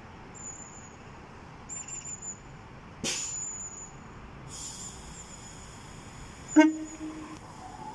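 Class 390 Pendolino electric train at the platform, a thin high whine coming and going, with a sharp click about three seconds in. Near the end comes the loudest sound, a short horn toot of about half a second, as the train starts to pull away.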